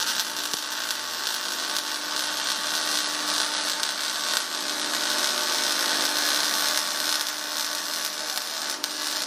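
MIG welder arc crackling and hissing steadily as a steel exhaust part is welded.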